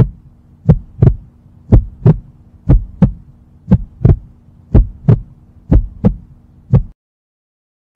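Heartbeat sound effect: paired thumps about once a second over a low steady hum, stopping suddenly about seven seconds in.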